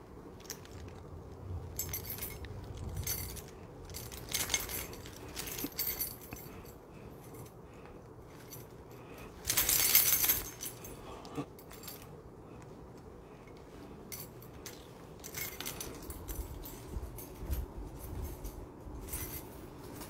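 Scattered clinks, clicks and rustles of small objects being handled, with a louder rustle lasting about a second around the middle.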